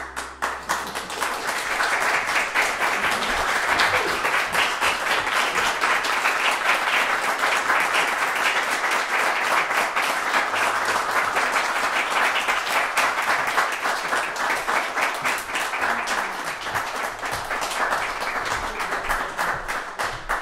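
Audience applauding, a dense, even clapping that thins out into separate claps near the end.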